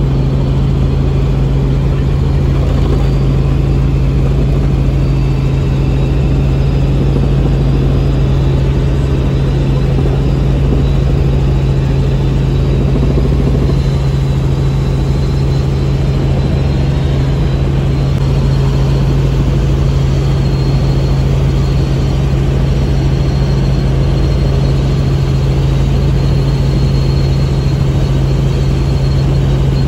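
Small helicopter in flight, heard from inside the cabin: a steady, loud drone of engine and rotors with a strong constant low hum.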